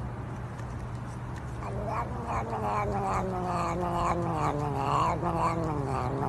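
Domestic cat giving one long, low yowl that starts about a second in and slowly falls in pitch, pulsing a few times a second, as a finger pokes its nose.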